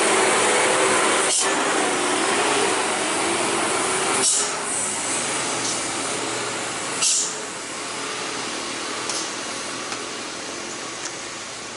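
A Hino 500 heavy truck's diesel engine running as the truck passes close by and pulls away, the sound fading steadily. Several short, sharp hisses of air break in a few seconds apart.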